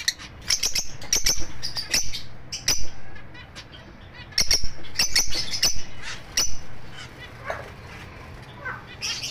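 Albino lovebirds chirping: short, sharp, high-pitched calls in rapid clusters, one over the first three seconds, another from about four and a half seconds, and more near the end, with a few softer, lower calls between.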